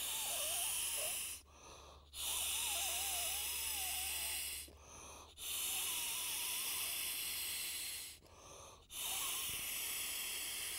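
A man blowing long breaths by mouth through the inflation valve of the air bed built into a Trakker Quick-Lock bedchair, inflating it. Four puffs of rushing air, each about two seconds long, come with short pauses between them and a faint wavering whistle through the valve.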